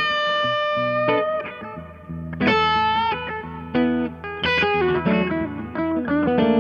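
Gibson SG Special electric guitar with P-90 pickups, played through an Okko Diablo GH overdrive into a Fender Vibroverb amp: a lead line that opens on a long held note, then moves into shorter note phrases, some with vibrato.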